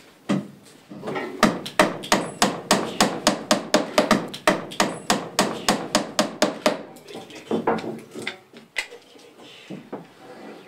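Hammer striking wood in a quick, even run of blows for about five seconds, then a few scattered knocks, as the tea hut's interior trim and ceiling are fixed in place.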